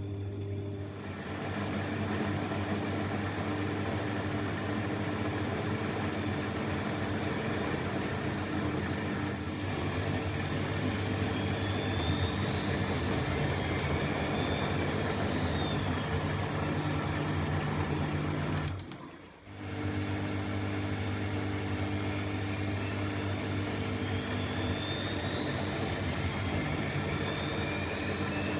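Bosch Exxcel 1400 washing machine running with a steady motor hum and a whine that rises and falls in pitch as the drum speeds up in a spin. The sound drops away briefly about two-thirds of the way through, then comes back at full strength.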